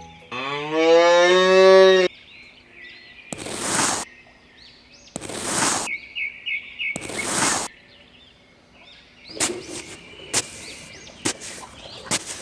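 A cow moos once, a single call rising in pitch for about a second and a half. It is followed by three short bursts of hiss a couple of seconds apart, with birds chirping faintly underneath and a few clicks near the end.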